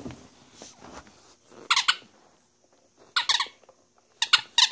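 Squeaky toy ball squeaked as a small dog bites down on it: four short, high squeaks or clusters of squeaks, about a second apart.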